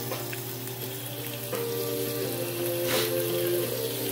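Steak strips, bell peppers and onions sizzling steadily in a frying pan, with one light knock about three seconds in.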